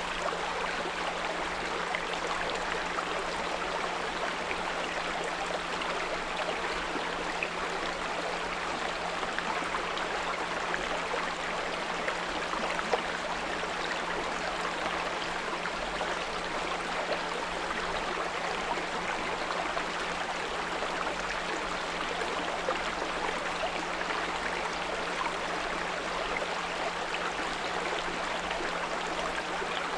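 A small brook babbling steadily, with a steady low 174 Hz pure tone mixed in underneath.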